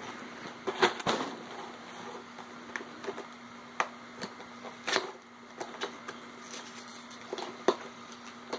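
A Lego box being handled and opened: irregular sharp clicks and short crinkling noises, a second or so apart.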